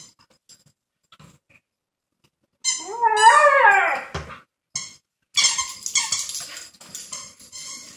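A dog howls once, a wavering call lasting about a second and a half, starting about three seconds in. High squeaks from her toy come at the start of the howl and again repeatedly over the last few seconds.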